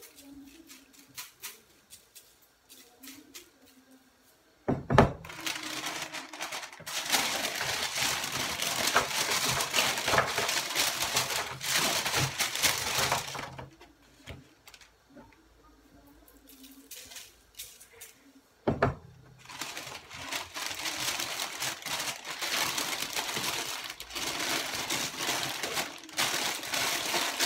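A thin plastic bag rustling and crinkling as it is handled and filled with broccoli florets. It comes in two long stretches, each starting with a sharp knock, with a quieter pause between them.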